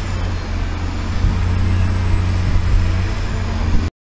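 Steady low rumble of a motor vehicle running, with a few low fixed hum tones under a haze of outdoor noise, cutting off abruptly near the end.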